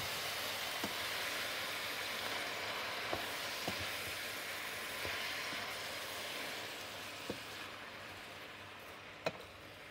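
Squid pieces sizzling in a stainless steel pot over sautéed onion and garlic while a wooden spoon stirs them, with a few sharp knocks of the spoon against the pot. The sizzling fades gradually toward the end.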